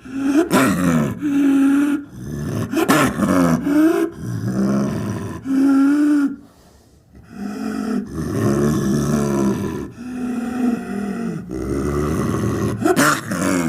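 Big cat vocalizations, a snow leopard sound effect built from snow leopard and tiger recordings: about ten calls in quick succession, each lasting from half a second to two seconds, with a short pause a little past the middle.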